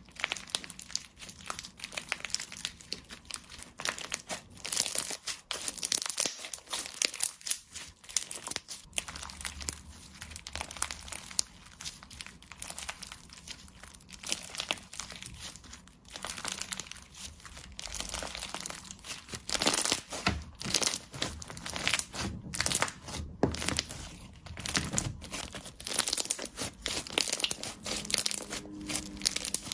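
Slime being squeezed and stretched by hand, making dense, irregular crackling and popping clicks.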